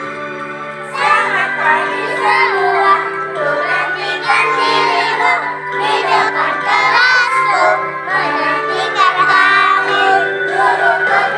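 A group of young children singing together as a choir over sustained instrumental accompaniment; the voices come in about a second in.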